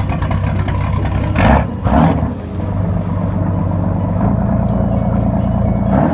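An engine running steadily, with two brief rushing noises about a second and a half and two seconds in.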